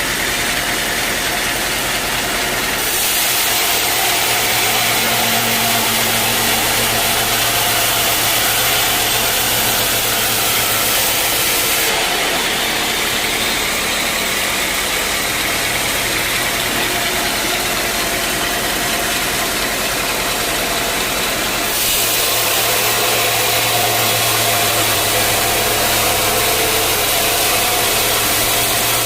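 Sawmill machinery running steadily: a loud mechanical drone with a hiss over it. The sound shifts abruptly about 3, 12 and 22 seconds in.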